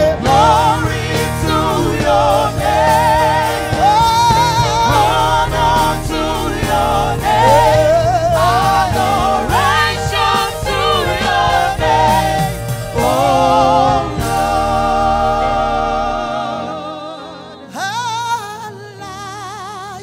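Live gospel music: a woman singing lead over backing singers and a band. About three-quarters of the way through, the bass drops away and the music gets quieter, with one more sung phrase near the end.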